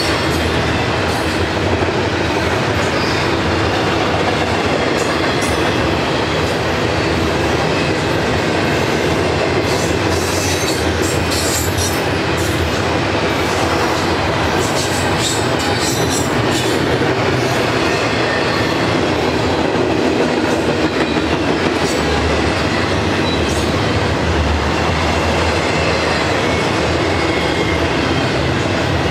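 Double-stack intermodal freight train's loaded well cars rolling past close by: a steady loud rumble and clatter of steel wheels on rail.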